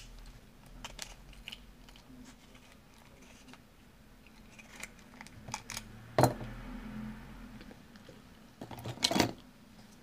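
Hands handling a Master Lock 189D padlock and its keys: scattered light metal clicks and rattles, with a sharper knock about six seconds in and a cluster of clicks about nine seconds in.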